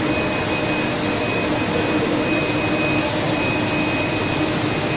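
Bottling-line machinery and conveyor running with PET water bottles: a steady, loud rushing noise with a constant high whine and a low hum underneath.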